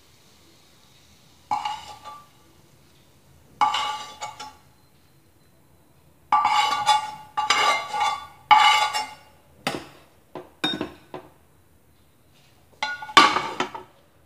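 A metal spatula scraping the tempering out of a frying pan into a steel container. It comes in several bursts of scraping with a ringing metallic clink, then a few sharp taps as the pan is knocked against the rim, and a last scrape near the end.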